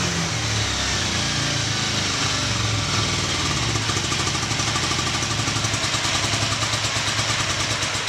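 Yamaha XZ550's V-twin engine idling steadily in neutral, running smoothly.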